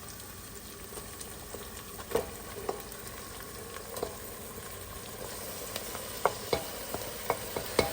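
Marinated chicken frying in ghee in a pot, with a steady sizzle and a spoon stirring it, scraping and knocking against the pot now and then, more often near the end.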